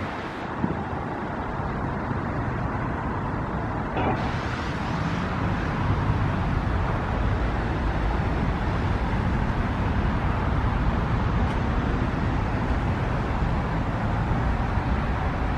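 Steady hum of road traffic with a low rumble underneath, slightly quieter for the first few seconds and then fuller and even.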